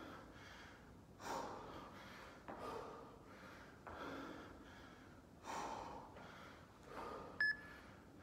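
A person breathing hard from exertion, with a strong exhale about every one and a half seconds in rhythm with repeated lunge-and-overhead-press reps. Near the end an interval timer beeps twice, a second apart, marking the end of the work interval.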